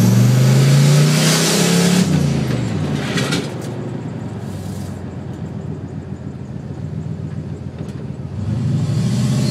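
Turbocharged Ford Mustang engine heard from inside the cabin, pulling hard with its pitch climbing for about two seconds under a loud rush of turbo air. The pitch drops as the throttle lifts, a short hiss follows, and the car runs quietly at low speed. Near the end the engine pulls again and a high turbo whistle rises.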